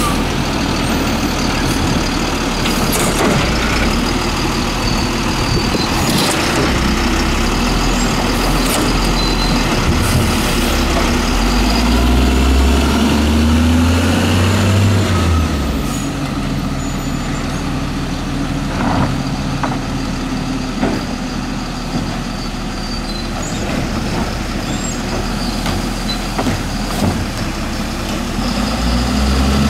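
Peterbilt 320 garbage truck's engine running steadily. About halfway through it revs up for a few seconds and then drops back. Short knocks come at scattered moments.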